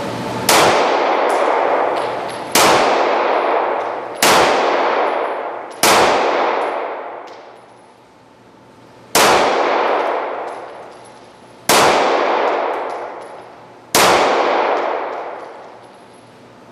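Seven single shots from a Ruger SR9 9mm pistol, fired slowly one at a time, roughly two to three seconds apart with a longer pause after the fourth, each with a long ringing decay.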